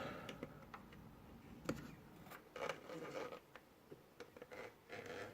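Faint, irregular clicking from a 3D printer's timing belt slipping over the idler pulley as the belt moves. The clicks come about a dozen times, unevenly spaced.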